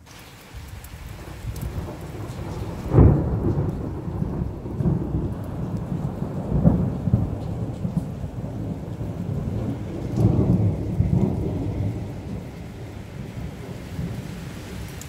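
A long roll of thunder rumbling, building from quiet and surging loudest about three seconds in, then swelling again twice before it dies down, over steady rain.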